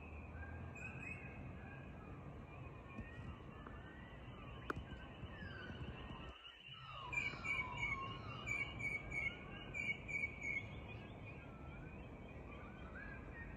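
Dawn chorus of many birds singing and calling at once: whistled rising and falling notes, with a loud run of quick repeated chirps about halfway through, over a steady high-pitched ringing and a low background rumble.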